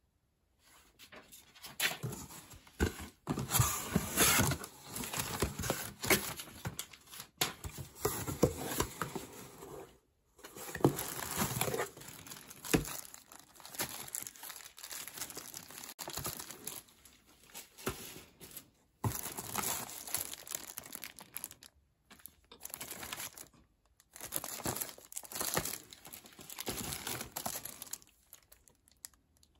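Clear plastic packaging bags crinkling and rustling as boxed accessories wrapped in them are handled and lifted out of a cardboard shipping box, in irregular bursts with a few brief gaps.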